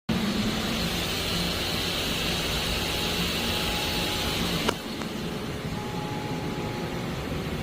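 Steady machinery hum and hiss in a machine shop, from a powered-up CNC lathe and its surroundings. A sharp click comes a little over halfway through, after which the high hiss stops and a lower, quieter hum carries on.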